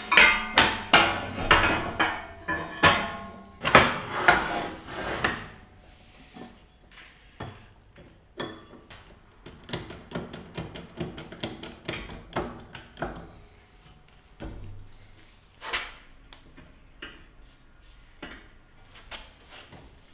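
Steel bracket plates of a hydro steering ram mount clanking and being knocked into place against a Dana 60 axle housing. Sharp metal knocks with ringing come thick and loud for the first few seconds, then lighter scattered taps and clicks.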